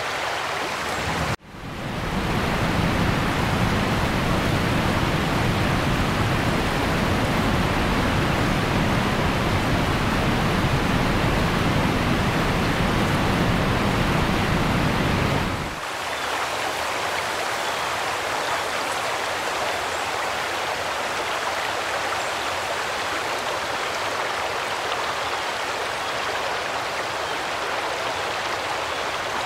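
Floodwater rushing along a waterlogged street, a steady wash of water noise. It cuts out briefly about a second and a half in, runs fuller and deeper until about halfway, then changes abruptly to a thinner hiss.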